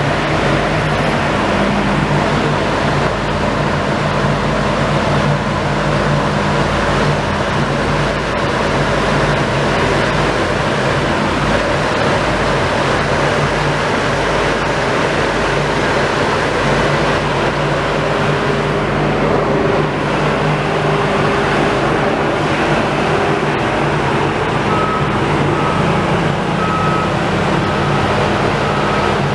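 Heavy vehicle engine running steadily amid street traffic noise. A reversing alarm beeps several times near the end.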